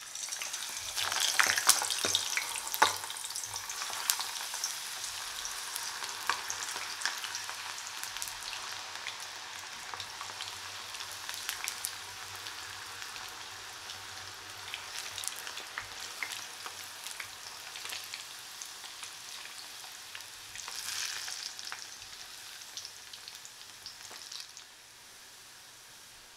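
Zucchini halves deep-frying in hot oil: a dense sizzle full of sharp crackles and pops, loudest as pieces go into the oil about a second in and swelling again about twenty-one seconds in, then settling to a quieter hiss near the end.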